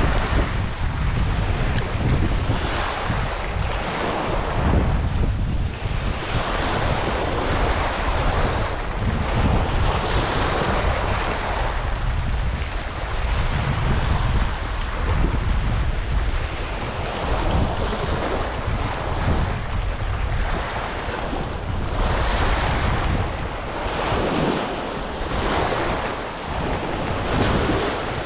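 Small waves washing and breaking on a stony shoreline, the hiss swelling and fading every few seconds, with gusty wind buffeting the microphone as a low rumble.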